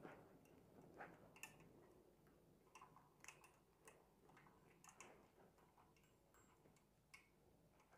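Near silence with faint, irregular clicks and ticks of plastic basket-weaving strips being handled and pulled into knots.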